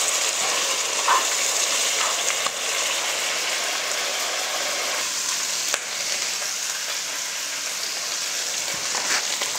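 Chicken pieces sizzling steadily as they fry in butter ghee over high heat in a nonstick wok, the water cooked off. A spatula now and then scrapes and taps the pan.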